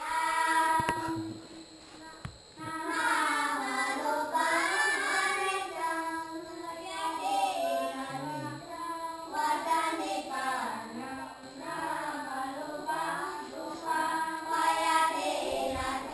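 A child singing a melody, with long held and wavering notes.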